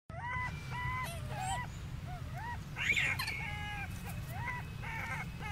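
Baby rhesus macaque cooing and whimpering: a run of short, high, tonal calls, many rising at the end, about two a second, with one louder, higher rising call about three seconds in, over a steady low rumble.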